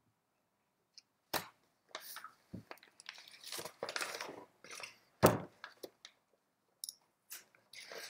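Handling noises from a Bafang BBS02 mid-drive motor being worked on by hand on a paper-covered table: knocks and clunks of the housing being moved and set down, with scraping and rustling in between. The loudest knock comes about five seconds in.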